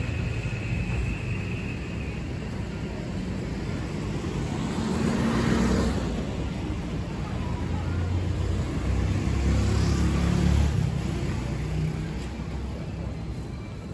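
City road traffic: vehicles going by with engine rumble and tyre noise. It swells twice as vehicles pass close, about five seconds in and again near ten seconds.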